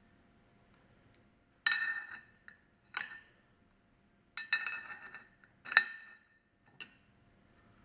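Steel screwdrivers clinking and scraping against the pump's cast-iron shaft seal cover and shaft as they are worked into the bore: about five sharp metallic clinks and short scrapes with a brief ring, the loudest about three-quarters through.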